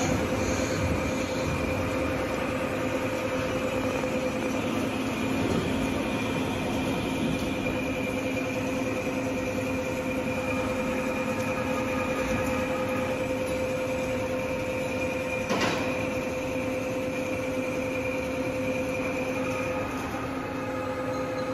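Steady hum of workshop machinery running, with several constant tones over a noisy background, and a single sharp clank about two-thirds of the way through.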